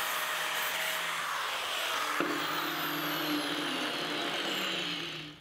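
Angle grinder with a flap disc running against the edges of plasma-cut steel, a steady grinding noise, taking off leftover slag and softening the edges. The tone shifts about two seconds in, and the grinder stops just before the end.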